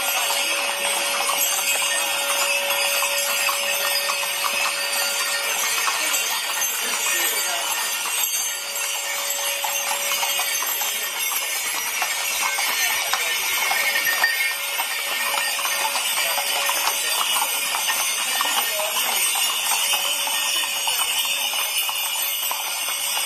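Hooves of a column of ridden horses clopping on a paved street, many steps overlapping.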